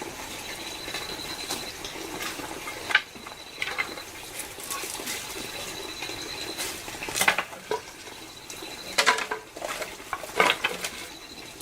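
Scattered knocks and clatter of household things being handled, a few at a time and loudest in the second half, over a faint high trill that starts and stops.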